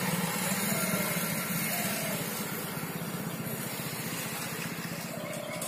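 A steady engine hum that fades after about two seconds, over a background of outdoor noise.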